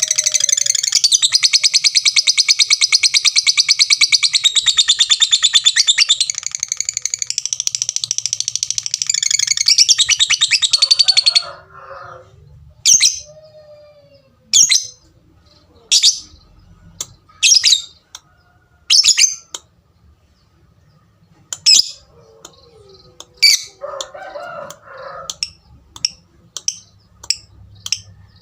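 Lovebird giving a long, rapid chattering trill (the 'ngekek' song) for about eleven seconds, then breaking into single sharp high chirps spaced roughly a second and a half apart.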